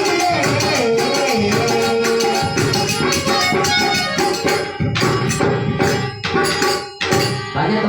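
Folk devotional music: dholak drum and jhanj cymbals playing a fast, even rhythm under a held melody. Over the last few seconds the rhythm breaks into a handful of separate accented strokes, ending the passage.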